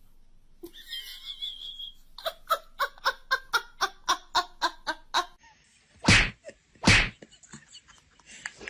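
A person laughing in a quick, even run of about a dozen 'ha' pulses, about four a second, followed by two loud, short bursts about a second apart.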